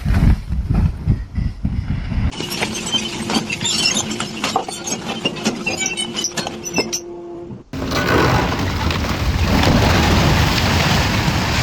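Demolition: a structure being torn down, with crashing and breaking debris and glass-like shattering, over a faint steady tone. Then, after an abrupt cut, a loud, even rushing rumble.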